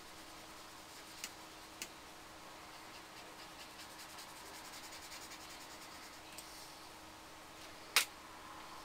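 Faint scratchy rubbing of a paintbrush stroking acrylic paint onto paper, busiest in the middle, over a steady faint hum. Two small clicks come early, and a single sharp click comes near the end.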